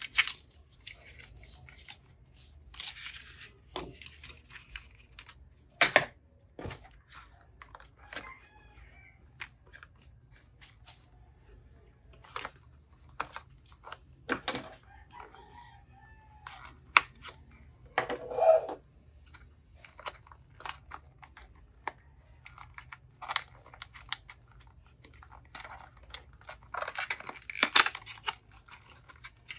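Cardboard and plastic packaging handled by hand: scattered clicks, taps and rustles as small boxes and blister packs are turned over and opened, with a dense burst of rustling and crinkling near the end.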